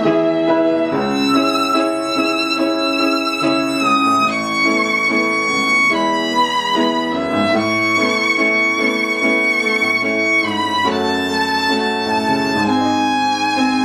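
Background music: a slow violin melody of long held notes with vibrato, the notes changing every second or two over a lower accompaniment.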